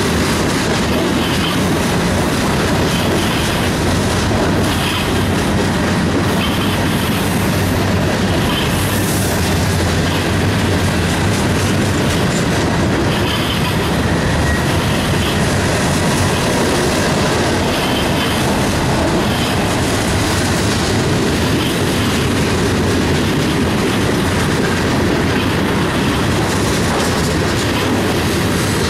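Freight cars of a Union Pacific mixed freight train rolling past close by: a loud, steady rumble of steel wheels on rail, with a repeating clack as the wheels cross the rail joints.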